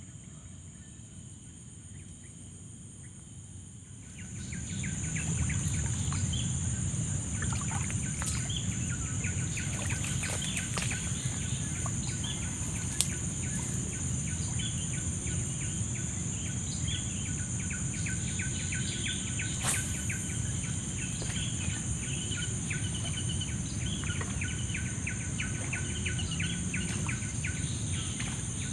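Lakeside outdoor ambience: a steady high insect buzz with birds chirping over it in quick repeated notes, above a low rumble, all growing louder about four seconds in. Two sharp clicks stand out, one near the middle and one about two-thirds through.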